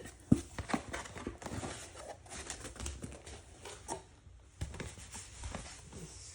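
Packaging being handled: irregular light clicks and knocks with rustling, the sharpest click about a third of a second in and a short lull around four seconds in.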